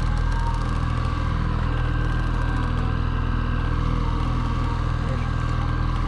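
Fishing boat's engine running steadily with an even, unchanging hum.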